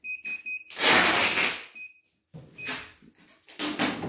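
Control-panel key beeps from a computerised embroidery machine as its speed buttons are pressed to raise the stitching speed: three short high beeps in quick succession, then one more. A loud burst of rushing noise comes between them, about a second in.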